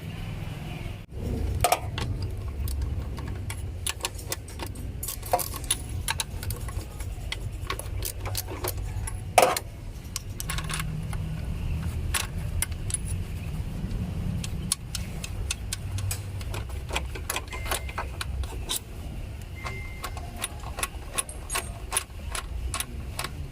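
Metal clicks and clinks of hand tools and fasteners as a throttle body is unbolted, scattered irregularly over a low steady rumble.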